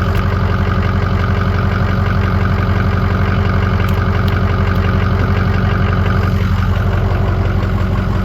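Ford 6.0 Power Stroke V8 turbo-diesel in a 2005 F-550 idling steadily, with a few light clicks about four seconds in.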